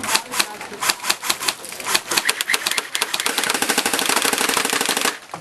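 Airsoft gunfire: a string of irregular single shots, then a rapid full-auto burst of about two seconds that cuts off suddenly.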